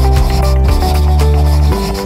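Background music with sustained notes over a heavy bass line; the bass drops away and the music gets quieter near the end.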